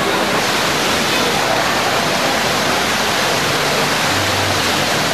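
A grid of dancing-fountain water jets spraying up and splashing back down, a steady rushing of water.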